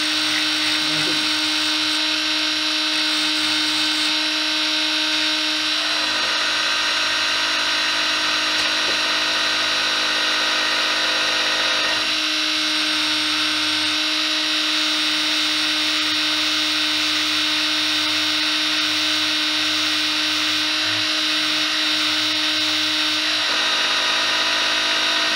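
Small electric lathe running steadily with a high motor whine, its pitch shifting slightly a few times, while a coarse sanding block rasps against the spinning balsa float body to shape it.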